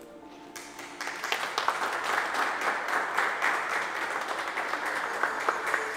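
A small group of people clapping their hands in applause, starting about half a second in and going on steadily.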